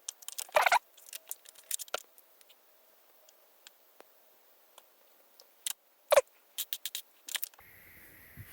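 Handling noise from a magnetic self-winding USB-C charging cable: scattered sharp clicks and light scrapes, with louder clicks about a second in and again near the six-second mark.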